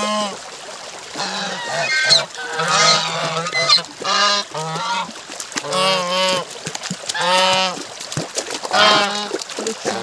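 A small flock of white domestic geese honking over and over, loud calls coming roughly every half second to a second.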